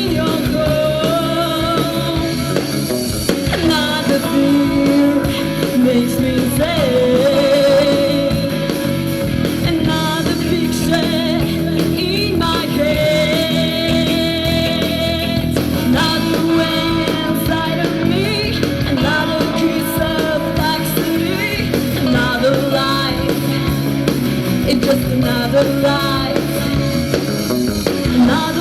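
A band playing a rock song, with a singer's voice held in long, bending lines over guitar and a steady full accompaniment.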